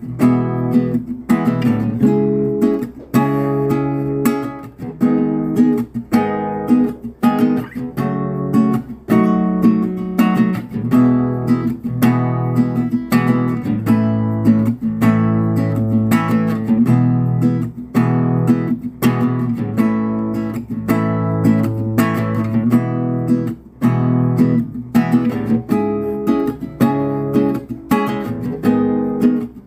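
Acoustic guitar (violão) strumming a sertanejo accompaniment with regular rhythmic chord strokes, a karaoke backing track with no vocals.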